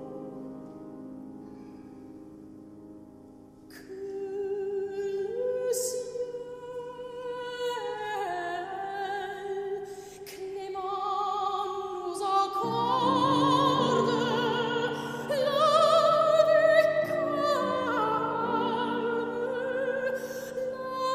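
Operatic soprano singing with wide vibrato over held low accompaniment chords. The voice comes in about four seconds in after a quiet held chord, climbs, and sustains high notes that grow louder later on.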